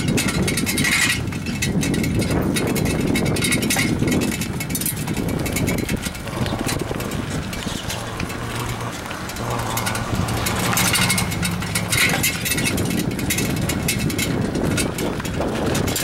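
Bicycle being ridden over asphalt: tyres rolling on the pavement with a steady clatter of rattles and knocks from the bike and the handheld camera.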